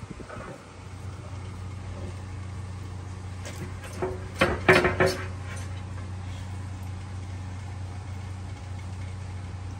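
A monitor lizard gulping down a chunk of raw steak, with a burst of sharp wet smacks and clicks from its jaws and the meat about four to five seconds in. A steady low hum runs under it from about a second in.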